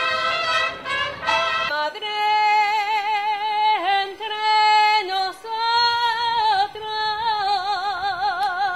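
A brass band sounding sustained chords, cut off about two seconds in by a woman singing alone: long held notes with a wide vibrato, the pitch stepping between phrases.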